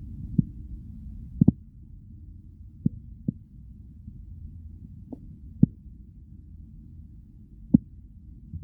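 Stomach growling: a steady low rumble with short, sharp gurgling pops at uneven moments, about eight in all.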